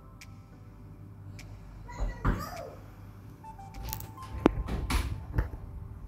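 Soft background music with a simple stepping melody, with a short louder sound about two seconds in and a few sharp knocks and rustles of handling in the second half.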